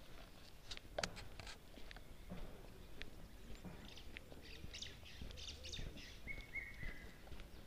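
Birds calling outdoors: high chirping in the middle, then a short call of three falling notes near the end. Scattered clicks and knocks are heard throughout, the loudest about a second in.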